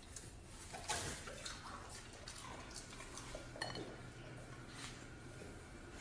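Kitchen knife clinking against a plate while slicing raw meat: a handful of faint, irregular clinks, one of them ringing briefly.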